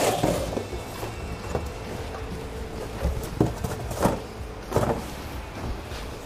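Workshop noise: a steady low hum with several short sharp knocks, most of them past the middle.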